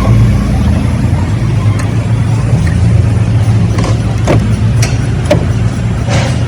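Car engine running steadily at idle, with several short sharp clicks or knocks over it.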